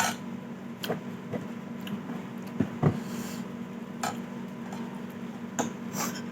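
Eating sounds: scattered soft clicks and clinks of utensils on dishes, with mouth sounds, over a steady low hum.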